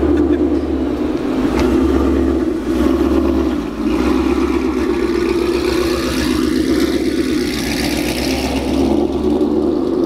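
Whipple-supercharged 2016 Mustang GT's 5.0 V8 running, pulling away slowly, with a whine that rises and falls through the middle.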